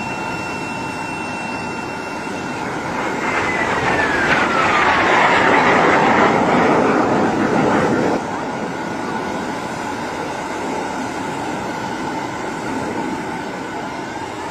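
Air-raid warning siren sounding: a steady high tone, then a falling pitch under a rush of noise that cuts off abruptly about eight seconds in, after which steady tones carry on.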